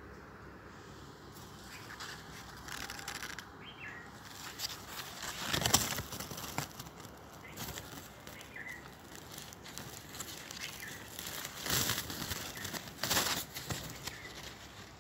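Outdoor ambience with a few short bursts of rustling noise, the loudest about six seconds in and two more near the end, and a few faint bird chirps.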